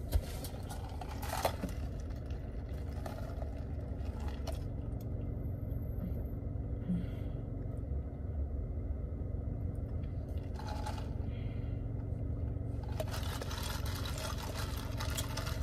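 Steady low rumble of a car cabin, with a few short sips through a straw and ice and a plastic cup clicking and shifting, more often near the end.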